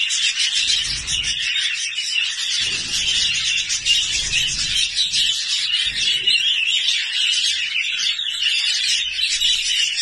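Many budgerigars in an aviary chattering at once: a dense, steady twittering with no pauses.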